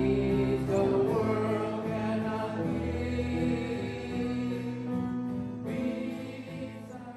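Closing music with long held notes and singing voices, fading out near the end.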